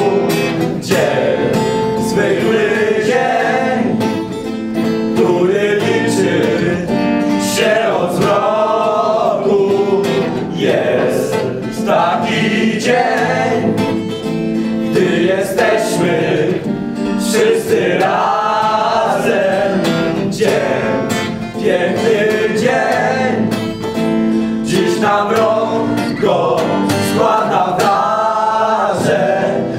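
A group of young men singing a Polish Christmas carol (kolęda) together, accompanied by a strummed acoustic guitar.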